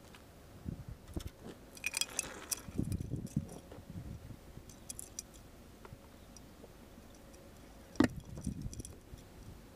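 Small clinks, rustles and knocks of objects being handled, with one sharp knock about eight seconds in.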